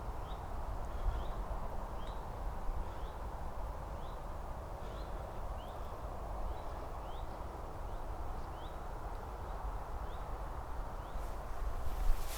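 A small bird repeating a short rising chirp about once a second, over steady wind noise, with a few sharp clicks near the end.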